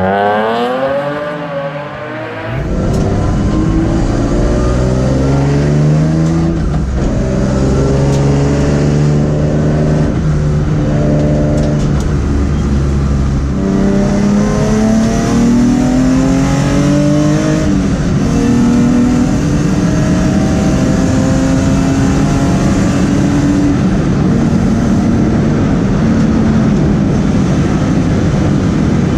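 BMW E36's M50/M52B30 inline-six breathing through individual throttle bodies, driven hard. Its revs fall over the first two seconds, then it runs loud under load, its pitch climbing and levelling off in stretches.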